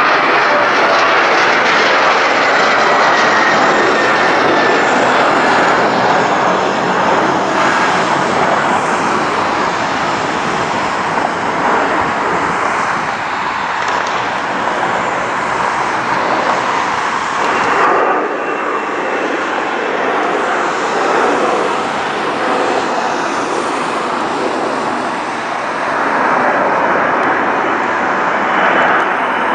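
Jet airliner departure noise: a Boeing 737's engines at climb thrust overhead, with a falling whine in the first seconds, easing as it pulls away. A Boeing 757 taking off brings the jet noise up again near the end.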